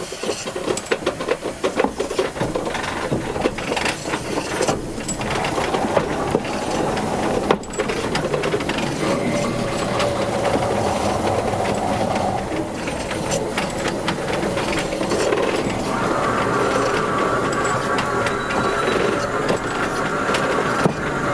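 Steam locomotive Spreewald rolling slowly over old, rough track: a dense running rattle and clatter of wheels and running gear. A steady squeal comes in about six seconds in and steps up higher near the end.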